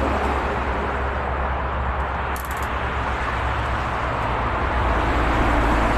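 Steady traffic noise from a nearby expressway: a continuous low rumble of passing vehicles, with a brief high hiss about two and a half seconds in.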